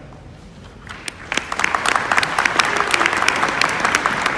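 Audience applauding. The clapping starts about a second in and builds into steady, dense applause.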